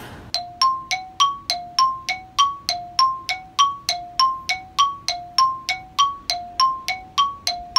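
A bell-like chime sound effect: short struck notes alternating between two pitches, about three and a half a second, each ringing briefly, like a loading jingle.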